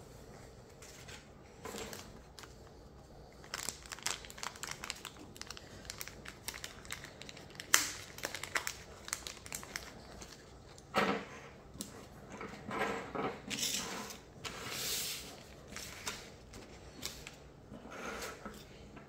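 Hands handling small plastic kit parts and their packaging: irregular crinkling and rustling with light clicks, and one sharper click about eight seconds in.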